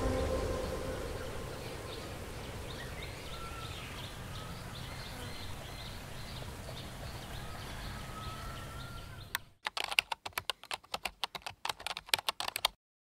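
Quiet outdoor ambience: a steady hiss with faint, rapidly repeated high chirps and two short rising calls. About nine seconds in it cuts off and gives way to a fast, uneven run of sharp clicks, like typing on keys.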